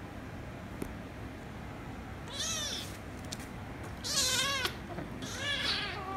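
Kitten meowing three times, high-pitched calls that each rise and fall in pitch, about a second apart; the middle meow is the loudest.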